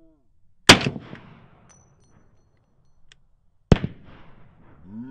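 Two single carbine shots about three seconds apart, each sharp and loud with an echo trailing after it. Near the end a man's voice starts up.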